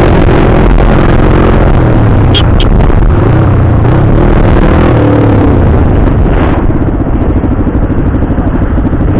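Sport motorcycle engine running while being ridden, its note rising and falling, under heavy wind noise on the helmet microphone. About two-thirds of the way through, the wind noise drops off and leaves a steady pulsing engine note.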